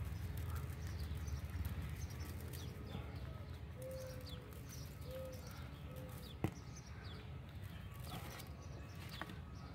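Small birds chirping faintly, short high calls scattered throughout, over a low steady rumble; a single sharp click about six and a half seconds in.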